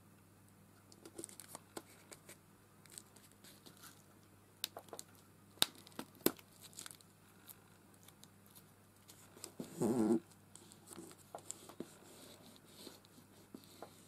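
Washi tape being peeled and torn and paper pieces handled: scattered small crinkles, ticks and tearing sounds. About ten seconds in comes a brief, louder pitched sound.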